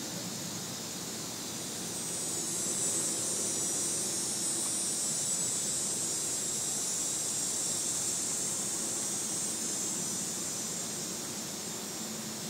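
A cicada calling: a high buzzing drone that swells about two seconds in, holds, and fades away near the end.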